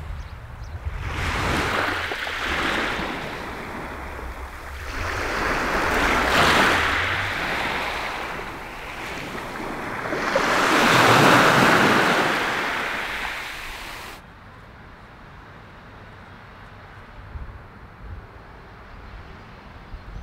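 Small waves washing in over a pebble beach, three surges a few seconds apart, the third the loudest. The sound cuts off abruptly about two-thirds of the way through, leaving a much quieter background.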